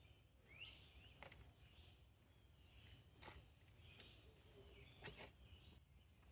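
Faint bird calls and chirps over quiet outdoor ambience, with three sharp clicks spaced about two seconds apart.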